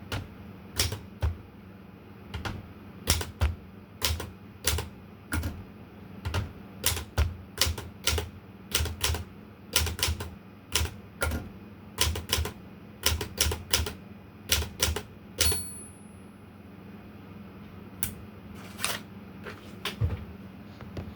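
Olympia Traveller de Luxe manual portable typewriter being typed on: uneven keystrokes, two or three sharp clacks a second. A short high ring sounds about fifteen seconds in, and the typing pauses for about two seconds before a few more strokes.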